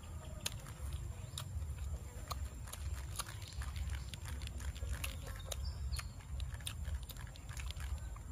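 A person chewing a mouthful of raw beef and lettuce close to the microphone: many irregular wet mouth and lip-smacking clicks over a low rumble.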